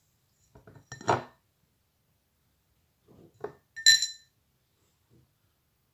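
Short handling clatter of a china plate: a few light knocks about a second in, then more knocks and a bright ringing clink of china just before four seconds in.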